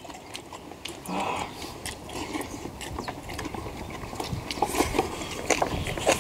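Several people eating at close range: chewing, with many small clicks and taps of metal chopsticks and spoons against steel bowls scattered throughout.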